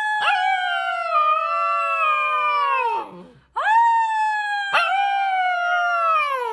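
Husky-type puppy howling: two long howls, each holding a high pitch and then sliding slowly down as it trails off, with a short break about three seconds in.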